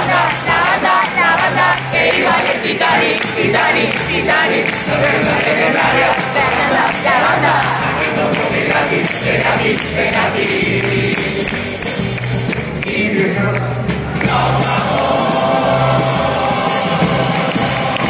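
Cádiz carnival group singing in chorus over strummed guitars and a steady drum beat.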